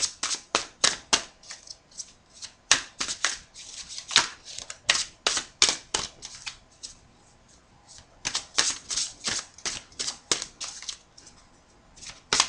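A deck of oracle cards being shuffled by hand: quick flicking strokes, a few a second, in runs broken by short pauses.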